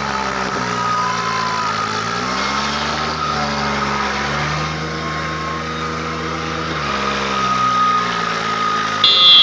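New Holland 3630 tractor's three-cylinder diesel engine working a loaded trolley: it revs up about two seconds in, holds high with a brief dip, then drops back to a lower speed near seven seconds. A shrill high tone starts just before the end.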